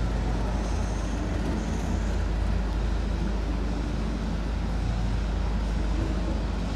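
A 620/720-class diesel railcar set runs steadily as it pulls away, its engines giving a low, even drone.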